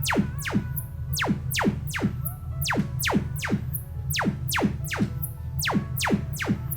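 Electronic background music with a steady pulsing bass and a repeated falling synth sweep about three times a second.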